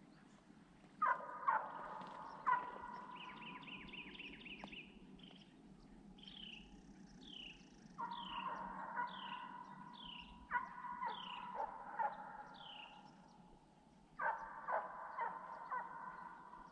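Deer hounds baying on a running deer, in several bursts of long drawn-out bawls. A bird sings a run of quick falling whistles between them.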